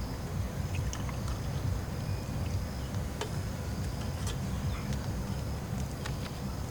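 Rain on a camp shelter: a steady low rumble with scattered sharp drops striking.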